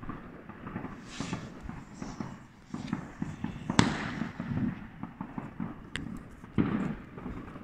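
Fireworks going off in the sky: scattered pops and crackles, with a sharp bang about four seconds in, the loudest, and another near the end.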